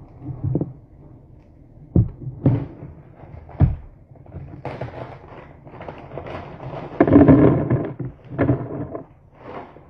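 Plastic food bag crinkling and rustling as it is handled and opened, with a few sharp clicks, then croutons poured from the bag rattling into a plastic container of lettuce, loudest about seven seconds in.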